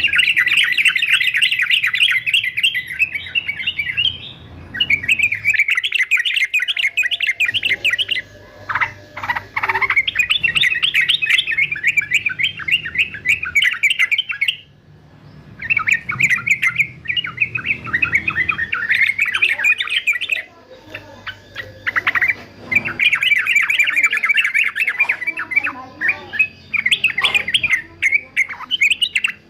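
Male yellow-vented bulbul (trucukan) singing: long runs of rapid chattering notes in phrases a few seconds long, broken by short pauses.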